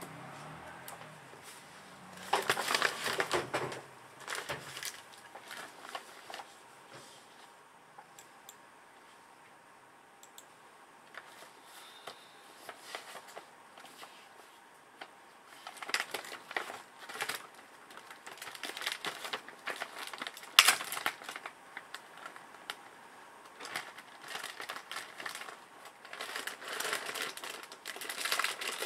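Handling noise from assembly work: irregular clicks and taps with bursts of crinkling and rustling, as of plastic parts and wrapping being handled, quieter for a few seconds in the middle.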